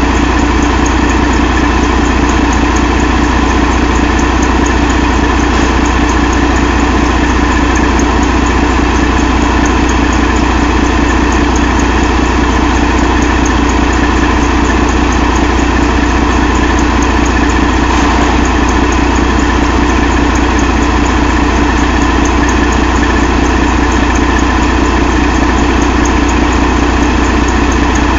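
2012 Detroit DD13 inline-six diesel engine idling steadily.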